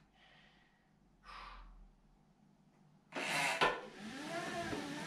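A faint breath out, then a heavier puff of breath about three seconds in. Near the end the road bike's tyres start spinning on the cycling rollers, a whirring hum that wavers and climbs in pitch with the pedalling.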